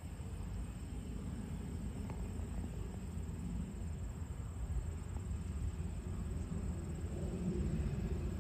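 Cessna 208B Grand Caravan's Pratt & Whitney PT6A turboprop running as the aircraft taxis: a steady low rumble that grows a little louder near the end as it comes closer.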